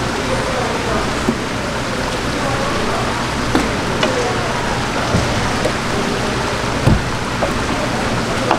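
Steady splashing hiss of running water over a plastic cutting board, with a few sharp knife knocks and taps on the board, the loudest a low thump about seven seconds in. Faint background chatter.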